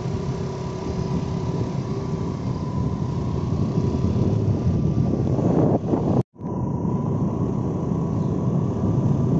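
Engine and road rumble of a moving vehicle heard from on board, with a faint steady whine over it. The sound drops out completely for a split second about six seconds in.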